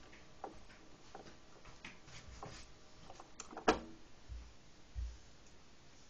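Faint, scattered light clicks and a few soft thumps, the loudest a sharp click with a brief ringing about three and a half seconds in.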